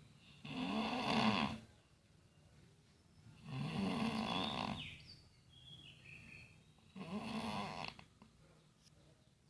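A sleeping person snoring: three snores about three seconds apart, each lasting a second or so.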